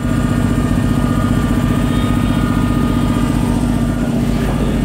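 A motor or engine running steadily, a constant hum with a few steady higher tones above it.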